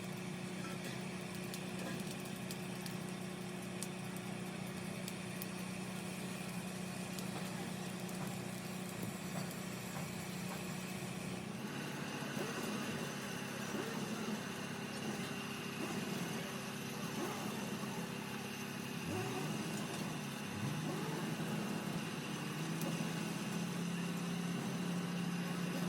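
A steady machine hum, with a sudden change about halfway through and a few short rising sounds in the second half.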